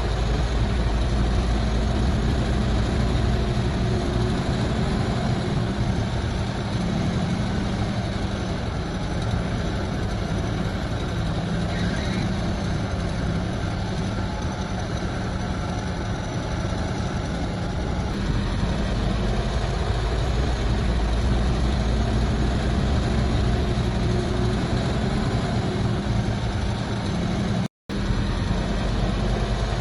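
Heavy earthmoving machinery's diesel engine running steadily, with small shifts in load and pitch. There is a split-second dropout to silence near the end.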